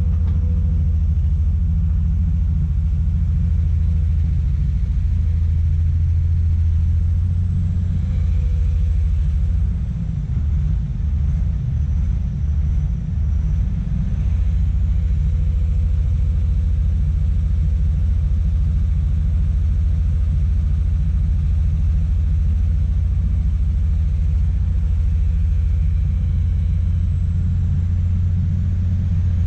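Komatsu PC200 excavator's diesel engine running steadily with a low rumble, dipping briefly about ten seconds in before picking up again. A faint high whine rises and falls over it.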